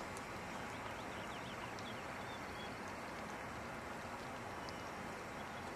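Steady outdoor ambience: an even, fairly quiet hiss, with a few faint high chirps and ticks between about one and three seconds in.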